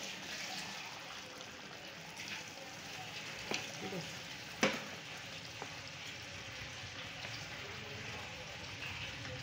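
Potato curry sizzling and simmering in a metal pan, its masala gravy loosened with a little water to finish cooking the potatoes. A wooden spatula knocks against the pan a couple of times, the sharpest knock about four and a half seconds in.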